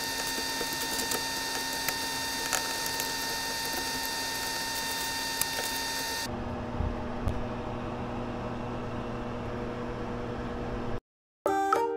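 Steady machine hum with a high whine over a hiss, which changes to a lower hum about halfway through. A few light clinks of a metal fork against a ceramic plate as pieces of toast are lifted onto it.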